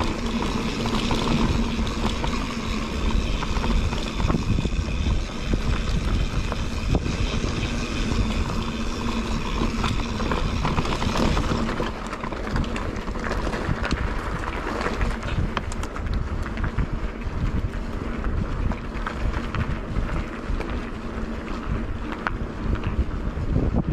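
Mountain bike riding downhill: wind buffets the camera microphone over the rumble and rattle of knobby tyres and the bike on a dirt trail. About halfway through, the wind hiss eases and sharper ticks and rattles take over as the tyres roll onto gravel.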